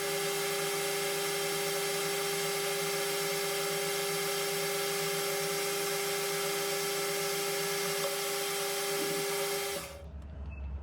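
Metal lathe running a steady cut on a brass bar, a fifteen-thou pass toward finished size, with an even whine and hiss. It stops abruptly about a second before the end.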